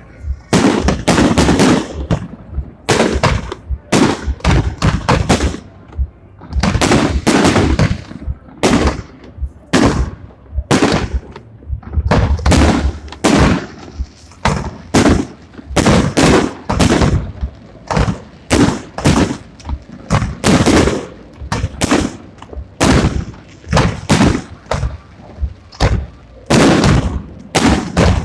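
Fireworks display: a continuous series of shell bursts, loud bangs coming singly and in rapid clusters, each with a short echo.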